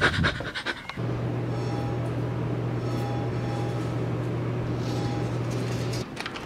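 Steady low electrical hum with a hiss over it, the room sound of a bathroom, starting about a second in and cutting off abruptly near the end; brief rustling and clicks come before it.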